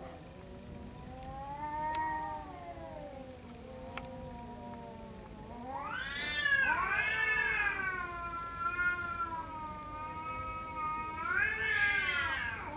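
Two domestic cats yowling at each other in a face-off: long, drawn-out, wavering caterwauls, the threat calls of rival cats squaring up to fight. A quieter, lower yowl comes first; from about halfway a louder, higher one takes over, with two voices overlapping, and it swells again near the end.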